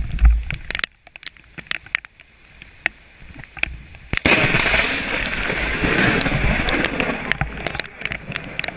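A lightning strike close by: a sudden sharp crack about four seconds in, followed by several seconds of loud crackling thunder that slowly fades. Scattered knocks and clicks come before it.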